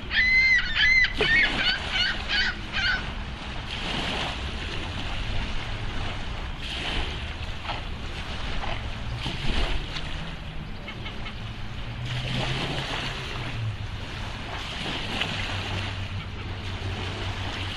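A quick run of high, honking waterfowl calls in the first few seconds, then water and wind noise over a low steady hum.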